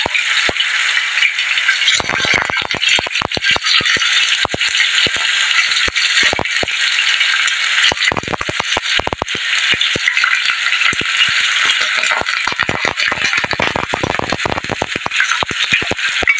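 Tofu blocks frying in hot oil in a nonstick pan: steady loud sizzling with dense crackling and popping spatter, flaring into heavier spells as more wet blocks are laid into the oil.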